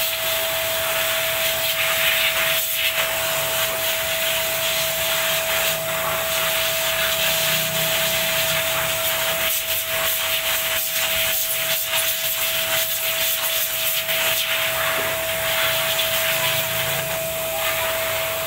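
Vacuum cleaner running steadily with a constant whine, its hose nozzle sucking at a car's brake assembly. The nozzle scrapes and rubs now and then against the metal parts.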